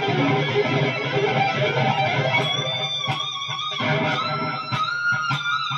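Electric guitar played through a Line 6 Helix LT multi-effects unit on an 80s-style lead tone: busy playing at first, then from about two and a half seconds in, a few long held high notes.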